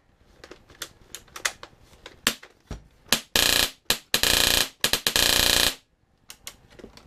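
Wolverine Airsoft Hydra HPA engine in a P90 airsoft gun firing on compressed air: a string of single semi-auto shots, then, about three seconds in, several rapid full-auto bursts.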